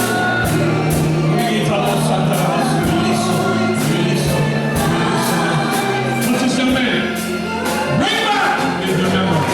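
Gospel music with group singing over a band: held bass notes and a steady drum beat.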